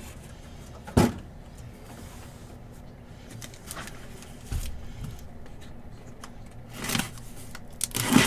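A cardboard shipping case of trading-card boxes being handled and set down, making knocks and thumps: a sharp knock about a second in, a duller low bump midway, and a louder knock near the end.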